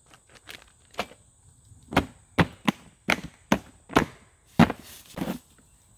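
Hard plastic rifle case being closed: the lid comes down and its latches snap shut, a run of sharp plastic clicks and knocks, about nine in all, the loudest in the second half.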